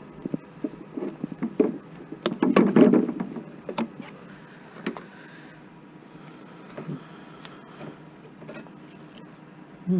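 Clattering and knocking of scrap metal parts being handled, a dense cluster of knocks about two to three seconds in, then a few scattered clicks.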